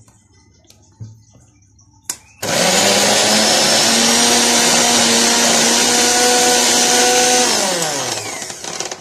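Electric mixer grinder with a stainless steel jar switched on about two seconds in, running steadily for about five seconds while coarsely crushing small prawns, then switched off and winding down with falling pitch near the end. Light clicks of the jar and lid being handled come before it starts.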